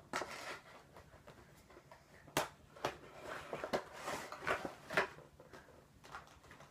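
A Funko Pop vinyl figure being taken out of its box: the packaging rustles, with a handful of sharp clicks and taps during the second half.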